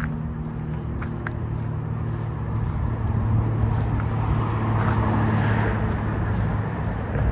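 City street traffic: a motor vehicle's engine running close by, with the traffic noise swelling louder in the second half as a vehicle passes. A few sharp clicks sound in the first second or so.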